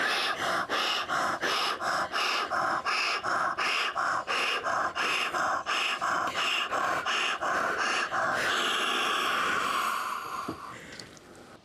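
Rapid, rhythmic paced breathing on cue, about two quick breaths a second, ending a little after eight seconds in with one long drawn-out exhale that fades away.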